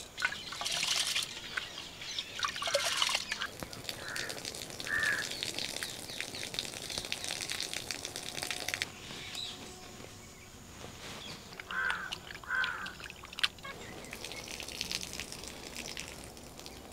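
Crows cawing outdoors, two short caws about four to five seconds in and two more about twelve seconds in. In the first three seconds there is some splashing and trickling of water.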